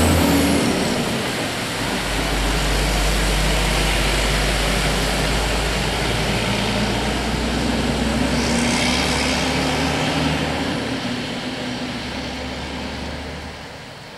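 Freightliner cab-over truck and trailer pulling away under a full load of wool, its diesel engine running steadily and climbing slowly in pitch as it gathers speed, then fading over the last few seconds as it goes off up the road.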